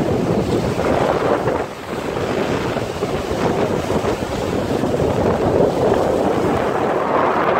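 Red Sea surf breaking and washing over the rocks of a boulder seawall, with wind buffeting the microphone.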